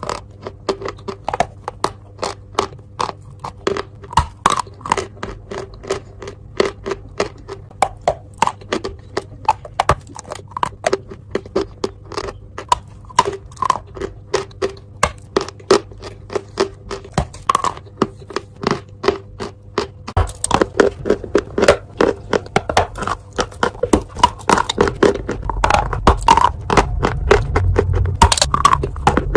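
Dry chalk crunching in sharp, crisp crunches a few times a second. They grow denser and heavier about two-thirds of the way in, over a faint steady hum.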